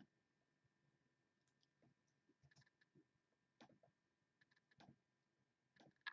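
Faint, scattered clicks of a computer mouse and keyboard, a few every second or so, over a faint steady high whine.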